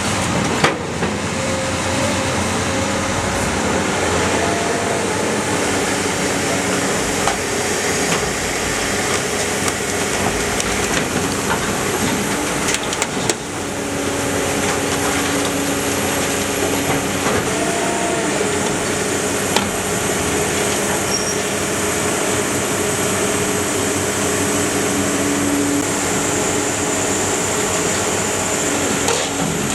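Iron Pack car baler running: a steady drone from its power unit and hydraulics, with pitch shifts as the load changes and scattered metal knocks and creaks.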